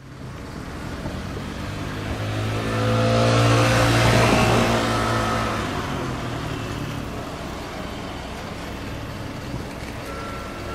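A vehicle passes close by with a rising and falling engine or motor tone, loudest about four seconds in, then settles into a steady rumble.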